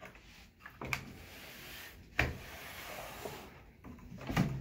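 Handling noise: faint rubbing with a few light knocks, about one, two and four seconds in.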